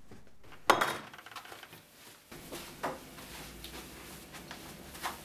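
Quiet room tone, broken by one sharp knock a little under a second in and a fainter knock near the middle, with a few light taps between.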